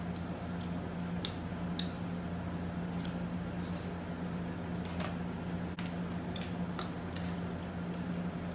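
Eating sounds: short, scattered crackles and clicks of crispy fried chicken being torn apart and eaten, with a spoon working the food, about a dozen in all. Underneath is a steady low hum.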